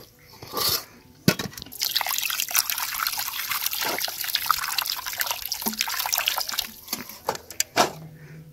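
Water from a hose pouring and splashing over raw eggs in a steel bowl. It starts about a second in and stops a little before the end.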